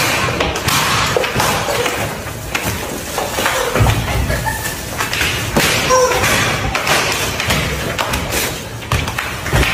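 Thuds and scuffling as people stumble and grapple on plastic mats, with a few short squeaks from rubber screaming chickens underfoot.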